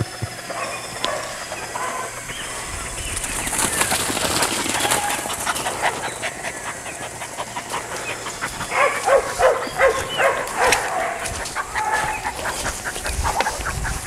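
A dog barking in a run of short, repeated barks starting a little past the middle, over birds chirping.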